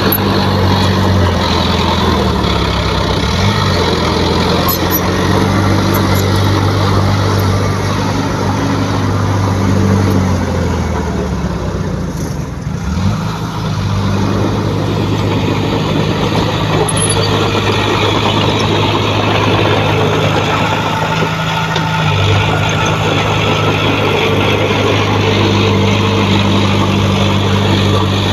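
Heavy diesel engine of earthmoving equipment running loudly and steadily, its note dropping and rising a few times as the revs change.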